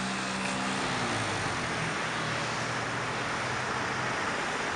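Road traffic: a steady wash of car engine and tyre noise from slow, queued city traffic, with a low engine hum that sags slightly in pitch over the first few seconds.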